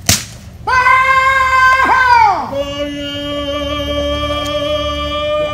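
A sharp click, then a man's long drawn-out Tongan ceremonial call: one loud held note that slides down, followed by a lower note held steady.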